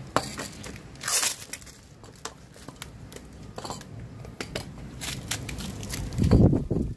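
A plastic bag crinkling and aerosol spray-paint cans clinking and knocking as they are unpacked and set down on concrete, with a louder thump near the end.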